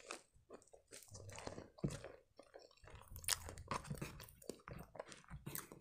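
Close-miked chewing of a soft custard-filled eclair: a bite right at the start, then irregular wet clicks and small crunches as it is chewed with the mouth closed.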